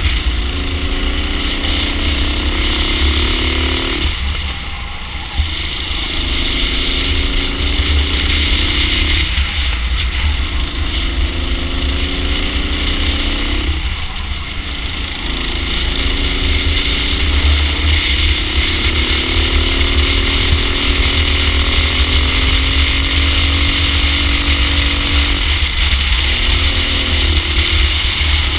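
A racing kart's engine heard from on board at racing speed, its pitch climbing steadily along each straight and dropping off sharply when the throttle is lifted for a corner, about four times.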